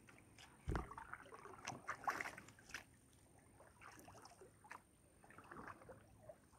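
A dull knock on a kayak hull about a second in, then scattered faint clicks and rustles of gear being handled aboard the kayak.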